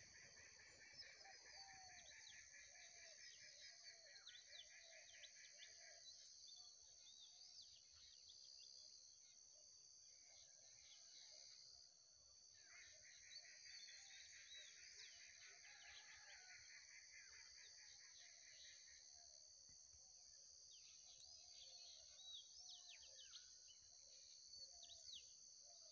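Faint field ambience of many small birds chirping, over a steady high-pitched drone. A fast, even trill sounds for about six seconds at the start and again from about twelve to nineteen seconds in.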